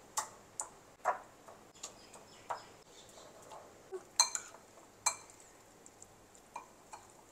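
A metal fork and a wooden spoon clinking and knocking against a ceramic bowl as potato pieces are tossed in sauce: about a dozen light, irregular clinks.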